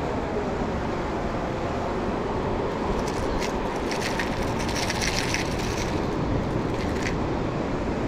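Steady rush of wind and surf on the microphone, with a run of crackling clicks from about three to seven seconds in as a hard plastic minnow lure and its hooks are worked out of a halibut's mouth.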